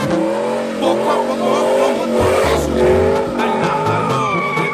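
Lowered GMC Sierra pickup doing a burnout: the engine is revved hard and the rear tires squeal against the pavement as they spin and smoke.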